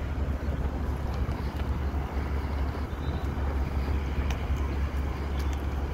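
Wind buffeting a phone's microphone, a steady low rumble with a hiss above it.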